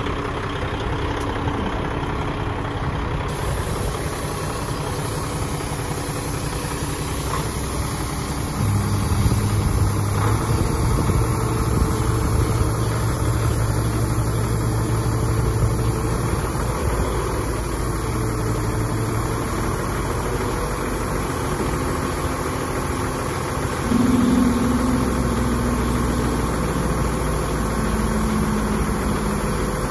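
Peterbilt 365 dump truck's diesel engine idling, then running louder at a steady higher speed from about nine seconds in as the hydraulic hoist raises the dump body, with a further brief rise in level about 24 seconds in.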